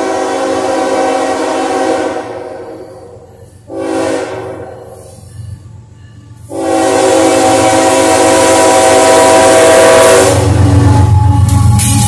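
Norfolk Southern GE ES44AC diesel locomotive's air horn sounding a long blast, a short blast and another long blast, the closing part of the standard grade-crossing signal. Near the end the locomotive passes close by with a deep, loud diesel engine rumble.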